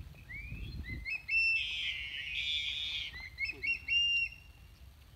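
Birds calling: a run of short rising chirps, a buzzy trill in the middle, then a few more chirps. Low rumbling noise fills the first second.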